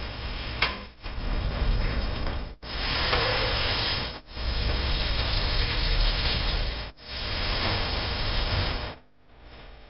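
Onions frying in ghee and oil in an aluminium pressure cooker: a steady sizzle that stops and restarts abruptly several times, with one sharp click about half a second in. The sizzle falls away to a faint low hum near the end.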